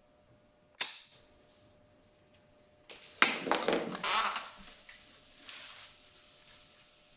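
Leather-working handling sounds: a single sharp click, then about a second and a half of loud rustling scraping as a slotted guide strip is pulled off the stitched welt of a hand-welted leather boot, with a shorter, fainter scrape a couple of seconds later.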